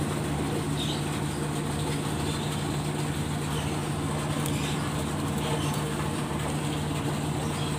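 Engine of a large ship idling with a steady, even low hum.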